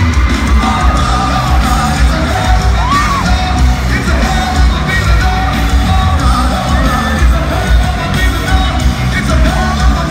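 Live rock band playing loud, with heavy bass and drums, recorded on a phone from inside the crowd, while fans yell and whoop over it.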